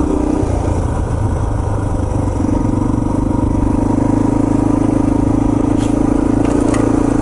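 Yamaha TT-R230's single-cylinder four-stroke engine running at low trail speed. It eases off about half a second in, then picks back up after about two and a half seconds and holds steady, with a few light clicks near the end.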